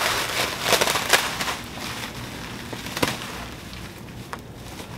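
Plastic wrapping crinkling and crackling as it is handled and pulled off a large boxed package, with a few sharp cracks in the first few seconds.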